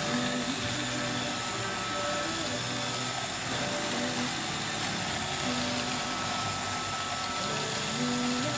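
Roomba robot vacuum running: a steady motor whine and hum with lower tones that come and go every second or so.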